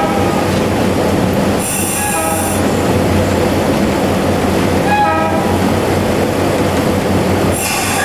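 EMD SW1500 switcher locomotive's two-stroke diesel running steadily, heard from inside the cab, with the locomotive horn sounded in short blasts about 2 s in, 5 s in and near the end.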